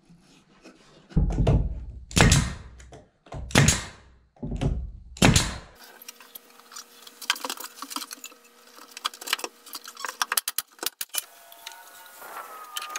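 Four heavy knocks and thumps as a pine shiplap board is pushed and tapped up into place against the ceiling boards. These are followed by scattered light clicks and taps over a faint steady hum, with a short wavering whine near the end.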